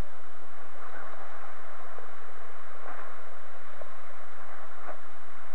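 Steady radio hiss from an open communications loop, with a faint steady hum underneath.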